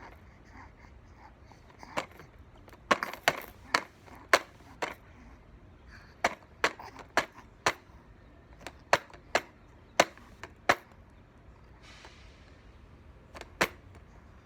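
A series of sharp taps and knocks on a hard surface, in irregular runs of about two a second, some louder than others, with a short soft hiss about twelve seconds in.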